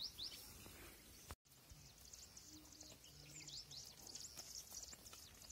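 Faint, quick high chirps of small birds over near-silent open-air quiet.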